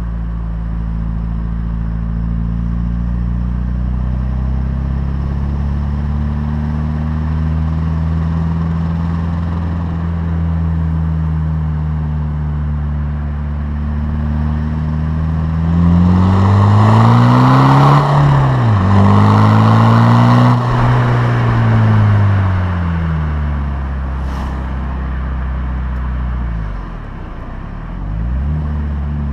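MG ZR 2.0-litre L-series turbodiesel heard at the tailpipe through a decat pipe and Scorpion exhaust while driving. It runs steadily at first, then pulls hard about halfway through with the revs climbing. The revs break off sharply for a moment, climb again and then ease away.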